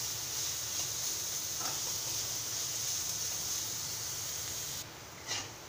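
Chopped onions sizzling in hot oil in a kadai, with a metal slotted spoon now and then scraping the pan as they are stirred. The sizzle drops off abruptly near the end.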